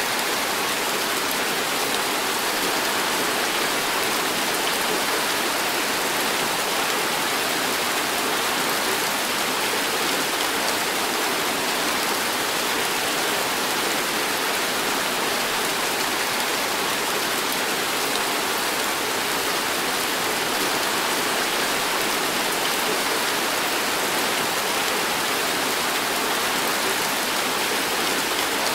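Heavy tropical rain pouring onto paved ground, a dense, even hiss that holds steady throughout.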